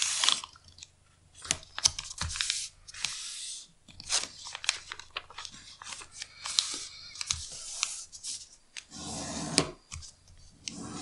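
A sheet of paper being folded in half and creased flat by hand: repeated spells of rustling and sliding paper with scattered small taps and clicks as the fingers press down the fold.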